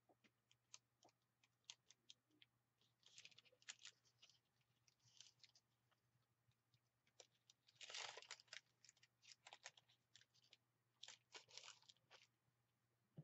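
Faint crackling and crinkling of paper under fingers pressing and smoothing a glued paper strip onto an art journal page. There are scattered small clicks, with the loudest rustle about eight seconds in.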